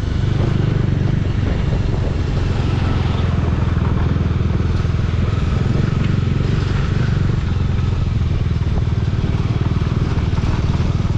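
Motorcycle engine running steadily on the move, with a constant low rumble and road and wind noise.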